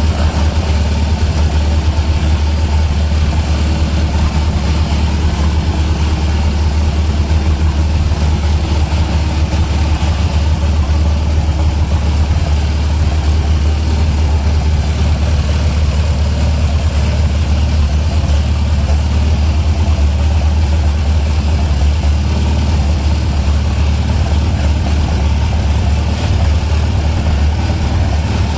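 A large engine running at a steady speed: a loud, unchanging low drone.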